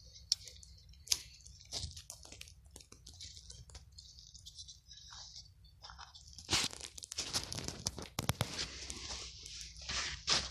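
Crunching and scraping of a bare hand digging through crusted, granular white debris and soil. Scattered small clicks at first, then a denser stretch of crunching about two-thirds of the way in.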